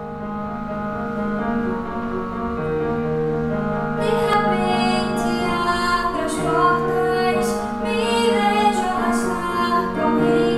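A woman singing a slow melody over held keyboard chords; the chords play alone at first and the voice comes in about four seconds in.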